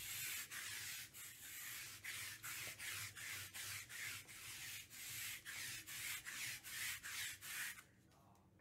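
Rhythmic dry rubbing or scraping, about two strokes a second, that stops shortly before the end.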